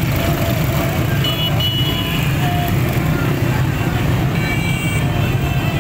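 A crowd of small motorcycles riding past at low speed, their engines running together in a dense, steady drone, with horns beeping over it twice, once about a second and a half in and again near the end.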